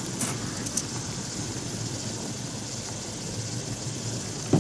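Steady hiss and rumble of a wallpaper steamer boiling water and feeding steam through its hose into a steam box, with two faint clicks of wood being handled in the first second.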